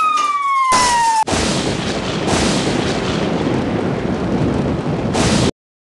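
Falling-bomb whistle and explosion sound effect: a whistle drops in pitch over about the first second, then an explosion rumbles for about four seconds and cuts off suddenly.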